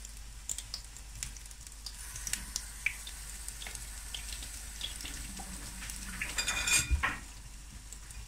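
Walnut-filled dough pastries frying in hot sunflower oil: a steady sizzle with many small pops and crackles. About six and a half seconds in the sizzle flares up briefly as another piece of dough goes into the oil.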